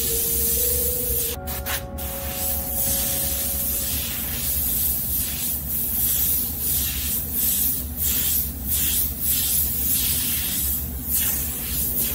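Airbrush spraying paint in short, repeated hissing bursts as the trigger is worked on and off while lettering, with a couple of sharp clicks about a second and a half in.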